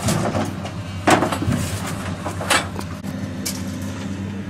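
Wire cage traps clanking and knocking as they are handled off a jeep's load bed onto gravel, with the loudest knock about a second in and a few lighter ones after. A steady engine hum runs underneath.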